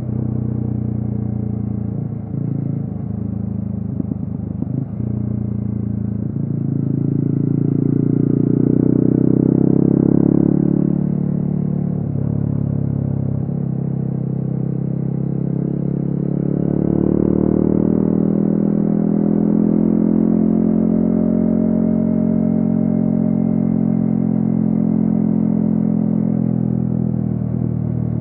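Yamaha XSR155's single-cylinder engine running through a DIY exhaust while being ridden. Its pitch climbs under throttle for a few seconds, drops sharply about ten seconds in, climbs again a few seconds later and then holds steady at cruise. There are a few rattling knocks early on.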